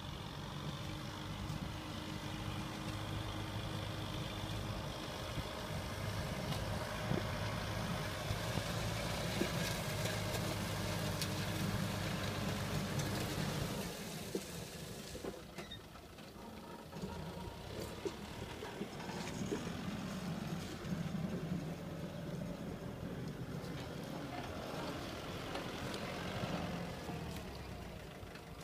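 Diesel farm tractor engine running steadily as it pulls a disc implement through the soil. The engine note shifts and briefly drops in loudness about halfway through.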